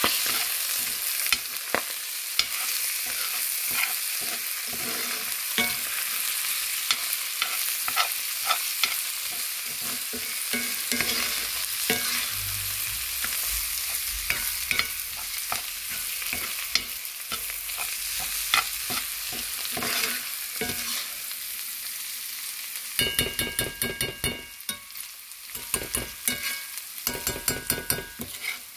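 Fresh-cut corn kernels sizzling in a pot while a metal spoon stirs them, with frequent sharp clicks and scrapes of the spoon against the pot. About three-quarters of the way through, the spoon scrapes faster, in a dense run of ringing clicks.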